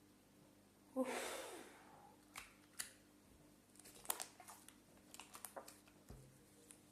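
Homemade slime being stretched and squeezed by hand: a sharp pop with a short rushing tail about a second in, as an air bubble in the slime bursts, then a scatter of small clicks and crackles from more bubbles popping.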